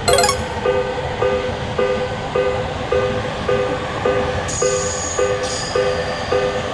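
Japanese railroad crossing warning bell (the 'kan-kan' alarm) ringing in a steady alternating two-tone rhythm, a little under two strikes a second, over a steady rumble. Two short high-pitched tones sound about two thirds of the way through.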